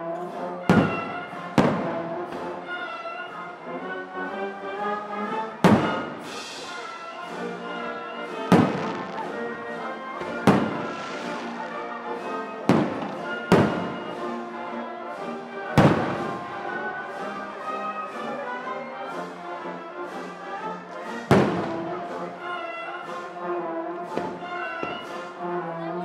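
Aerial fireworks shells bursting with about nine sharp bangs at irregular spacing, over orchestral music with brass playing the show's soundtrack.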